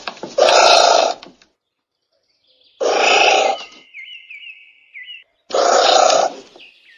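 Anteater giving three short, hoarse calls, each under a second and about two seconds apart. A faint, high twittering trill sounds between the second and third.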